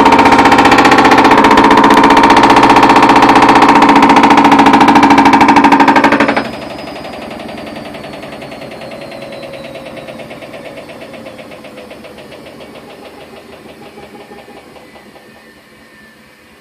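Whirlpool Duet front-load washer in its spin cycle making a loud, rapid knocking, the sign of a broken spider arm on the drum. About six seconds in the noise drops sharply, and the drum spins down with a falling whine that fades away.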